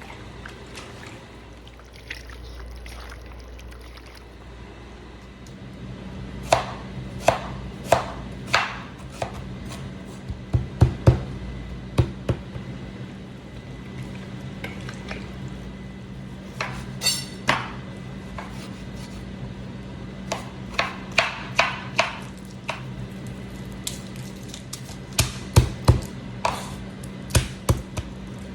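Irregular sharp knocks of kitchen utensils during food preparation, coming in clusters, over a steady low hum.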